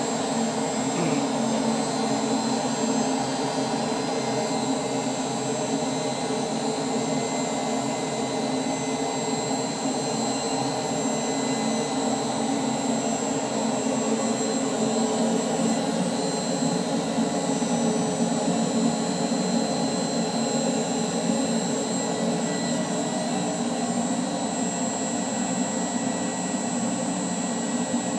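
Rotronics Flow Scan variable-speed flow bench blower running steadily: a rush of air with a high whine over it. It is drawing air through a stock Kawasaki Z1000 air filter, holding a set pressure of 1.5 inches of water while the airflow is measured.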